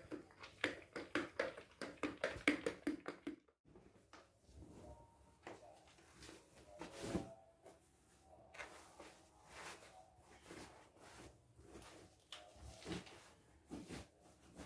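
Quick, rhythmic broom strokes sweeping a tiled floor for the first few seconds, cutting off abruptly. Then soft rustling and handling noises of a cotton fitted sheet being pulled over a floor mattress.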